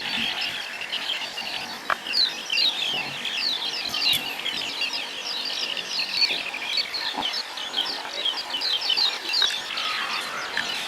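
A dense outdoor chorus of many small animals calling: rapid, high, down-slurred chirps overlapping without pause, with a couple of faint knocks.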